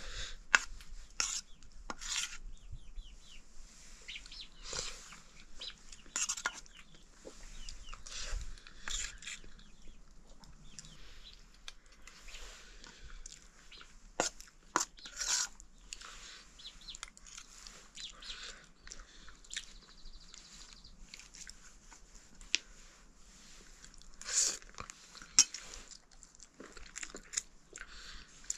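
Eating at a meal: a spoon clinks and scrapes against a steel plate, with chewing and small smacks, heard as scattered short clicks.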